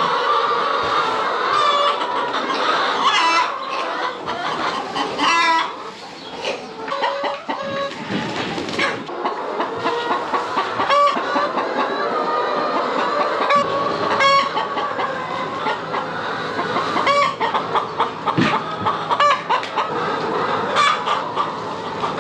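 A large flock of brown hens clucking, many short calls overlapping without a break, as they crowd around the feeder while feed is poured in.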